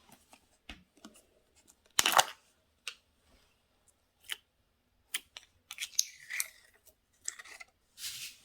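Slime being handled, giving irregular sticky crackles and clicks. There is a louder crackling burst about two seconds in and more near six and eight seconds.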